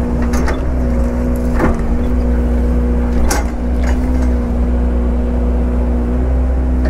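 Heavy equipment engine running steadily at an even pitch, with a few short knocks and clunks along the way.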